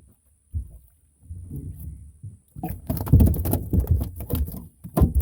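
Water splashing with sharp knocks as a blue catfish on the line is pulled up to the boat, loudest and busiest from about halfway through to the end.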